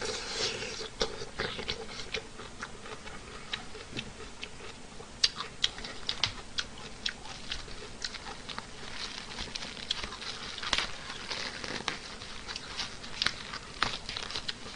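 A person eating close to the microphone: irregular sharp mouth clicks and smacks of chewing, with stretches of soft rustling from handling food in the containers.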